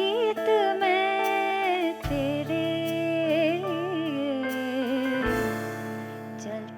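Live ensemble playing a slow, tender ballad: sustained chords over a bass that changes about two seconds in and again near five seconds, under a lead melody that bends and wavers with vibrato. It is the instrumental passage of the song, with no words sung.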